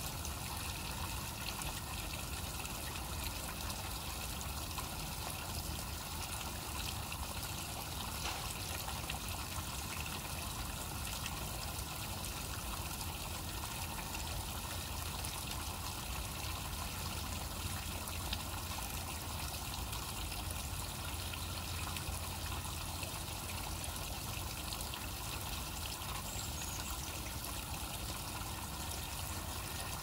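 Steady trickle of water running over the stones of a rocky stream bed, with a low rumble underneath.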